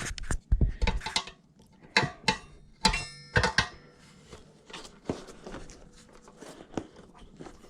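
Tools and hands working a stiff tire bead onto a bike's rear wheel rim: a quick run of sharp clicks, knocks and scrapes in the first few seconds, then sparser, fainter ticks.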